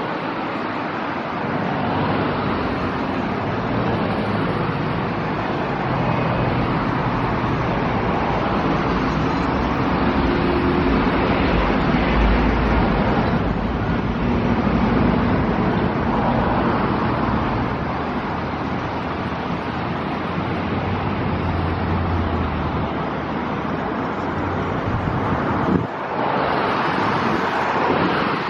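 Jet airliner engines heard from a distance, a steady rushing noise with a low hum that shifts in pitch, mixed with wind on the microphone.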